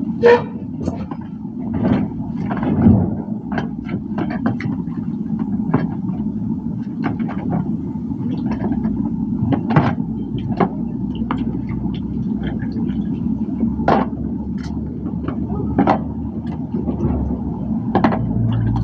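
A kitchen knife scraping carrots and tapping against vegetables and plastic tubs of washing water, with scattered short clicks and scrapes, over a steady low rumble.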